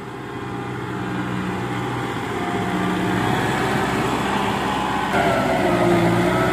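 Kubota M6040SU tractor's diesel engine running steadily under load while it pulls a disc plough through wet mud. It grows louder as the tractor comes up close.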